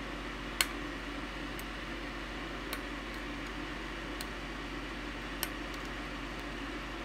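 Small hard objects being handled on a workbench: about six short, sharp clicks spread over seven seconds, the loudest about half a second in. They sound over a steady fan-like hiss and low hum.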